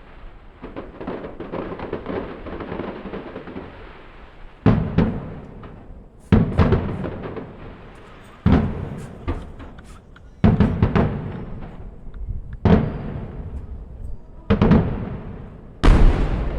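Aerial fireworks shells bursting: a stretch of crackling, then seven loud booms about every two seconds, each trailing off in a rumble.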